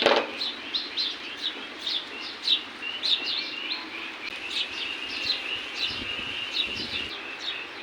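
Small birds chirping: quick, short downward-sweeping calls repeated a few times a second, over a steady hiss.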